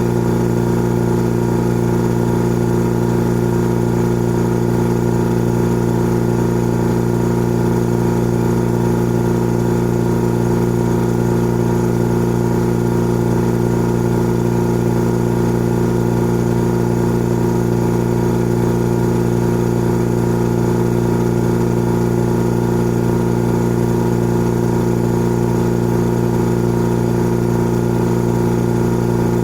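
Old electric air compressor running steadily with an even, unchanging hum and drone from its motor and pump.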